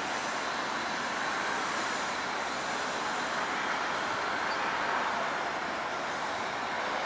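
Steady, even background noise of distant road traffic, with no distinct engine note or sudden sounds.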